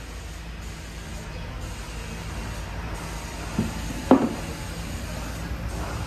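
Steady low rumble in the background, with two short wooden knocks about half a second apart near the middle, the second louder, as boards are picked up off the floor.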